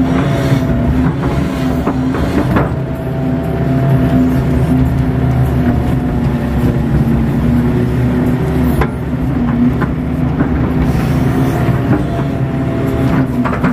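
KATO hydraulic excavator's diesel engine running steadily under load as the arm and bucket work, heard from the operator's cab, with a gently wavering whine. Two short knocks break in, one a few seconds in and one past the middle.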